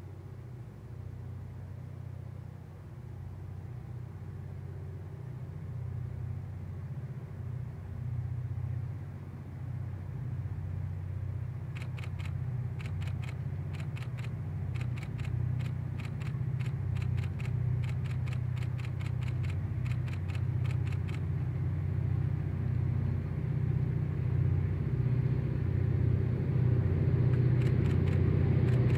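Diesel locomotives of an approaching freight train, a low engine rumble growing steadily louder. A run of quick, sharp clicks sounds for several seconds in the middle.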